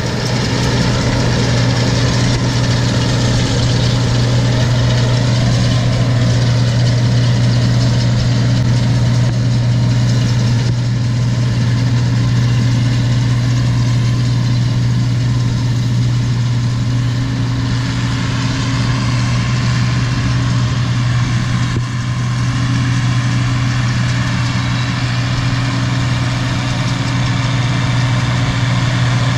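Tractor engine running at a steady speed, a continuous low hum that dips briefly about 22 seconds in.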